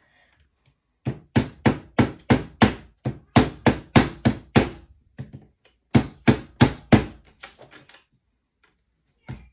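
Small hammer tapping on a wooden lollipop stick held over a track pin, driving the pin in to fix model railway track down. The taps come in quick runs of about three a second with short pauses between them, then a few lighter taps and a fresh strike near the end.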